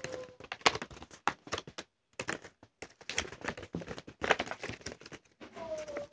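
A paper booklet and toy packaging being handled and unfolded: a quick, irregular run of crinkles, rustles and small clicks, with a couple of brief pauses.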